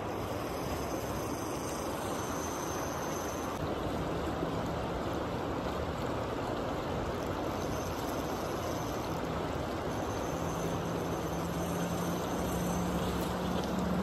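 Shallow river water rushing and lapping over rocks along the bank: a steady, even wash.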